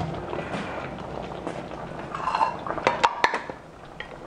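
Stew simmering and being stirred with a spoon in a stainless steel pan, then a quick cluster of sharp knocks and clinks of the spoon against the pan, about three seconds in.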